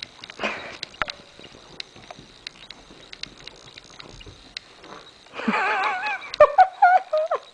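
A Pembroke Welsh corgi sniffing and snuffling, with light ticks of claws, then about five seconds in a loud, wavering, high-pitched moan from the dog as she rolls on her back, breaking into short yelps near the end.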